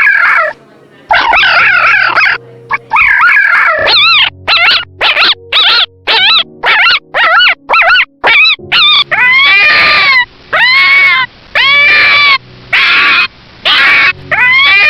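A puppy yipping in quick, short, high calls, then whining in longer rising-and-falling cries about once a second.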